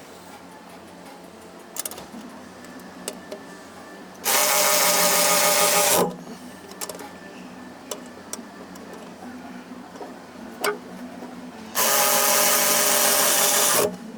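A power tool runs in two bursts of about two seconds each, a few seconds in and again near the end, driving fasteners tight. Scattered small clicks and knocks of handling fall in between.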